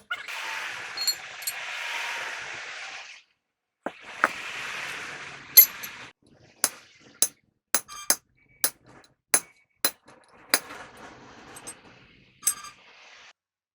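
Two spells of hissing, a few seconds each, then a run of sharp metallic clinks about two a second.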